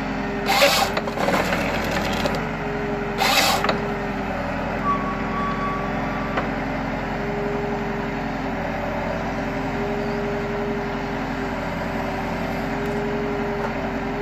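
Valtra N154e tractor's diesel engine running steadily, driving the hydraulic crane and harvester head. Two short bursts of rough wood-cutting noise, about half a second and about three seconds in, come from the Nisula 325H harvester head working a stem.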